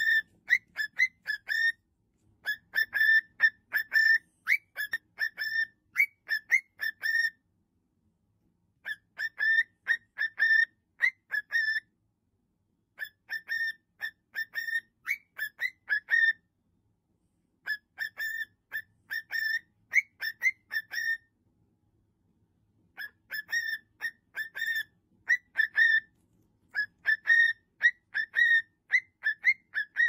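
Cockatiel whistling a repeated tune: phrases of short, clear notes at nearly one pitch, several a second, each phrase lasting a few seconds with short pauses between.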